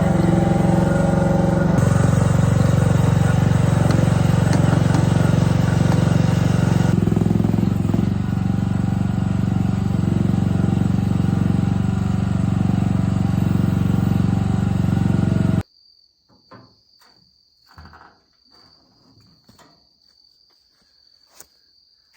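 A vehicle driving, with a steady loud engine and road drone towing a trailer, shifting slightly twice. It cuts off suddenly about three-quarters of the way in, giving way to a quiet evening with a steady high insect trill and a few faint ticks.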